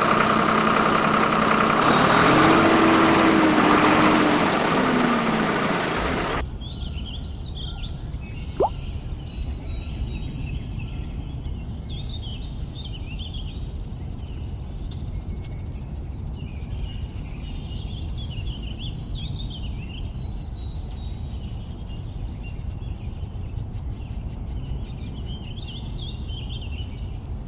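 A toy tractor's small electric motor whirring loudly for about six seconds, its pitch sliding down near the end. Then, after a sudden change, birds chirp repeatedly over a steady low rumble.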